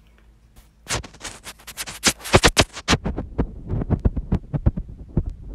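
Handling noise on the phone's microphone: rubbing, scraping and knocks as the phone is gripped and moved. They start about a second in as a rapid run, are loudest around two to three seconds, then go on more lightly.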